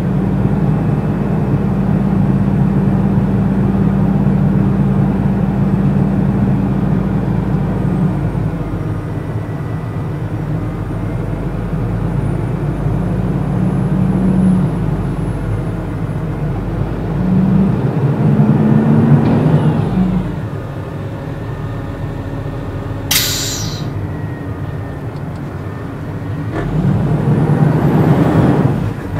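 Truck engine running, heard from inside the cab, swelling louder twice as it pulls harder through mud. A short, sharp hiss of air cuts in about two-thirds of the way through.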